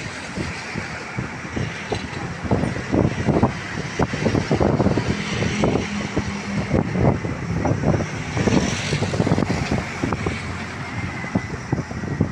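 Vehicle and engine noise outdoors, with frequent irregular low thumps of wind buffeting the microphone. A steady engine hum stands out for a couple of seconds near the middle.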